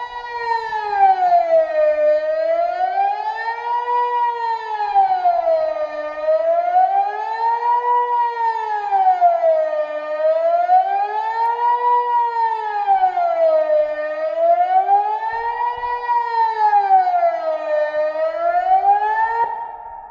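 Kockum Sonics Delta 4 electronic civil-defence siren sounding the Swiss general alarm: a loud wail rising and falling about every four seconds. It stops near the end.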